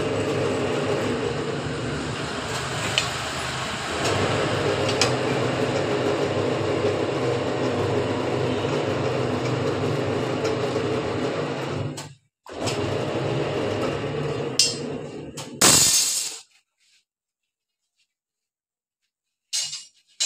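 Motorized scroll-bending machine running with a steady mechanical hum, with a short break just past halfway. About three-quarters of the way in there is a loud clatter of steel, then the sound stops into silence, with one brief clatter near the end.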